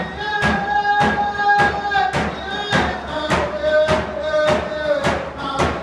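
Round-dance song: hand drums beaten in a steady beat of about two strokes a second, under singing voices holding long notes.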